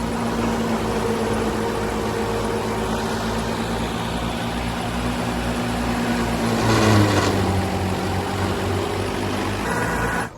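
Old combine harvester's diesel engine running steadily under working load, with an even low throb. About seven seconds in it surges louder and its note drops slightly.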